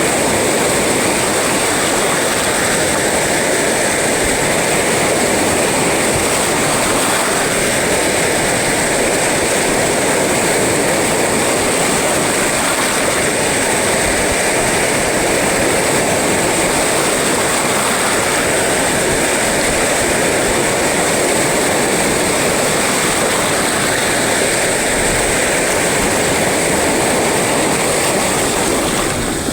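Sea surf: a loud, steady roar of waves breaking, swelling slightly every few seconds with no single wave standing out.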